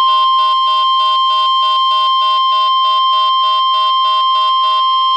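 NOAA Weather Radio 1050 Hz warning alarm tone sounding steady and loud during the required weekly test, heard over a weather radio receiver. Underneath it a quieter beep pulses about three times a second and stops near the end.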